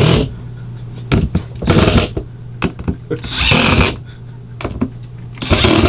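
Cordless drill driving screws through an RV toilet flange into the floor, four short bursts of a fraction of a second each.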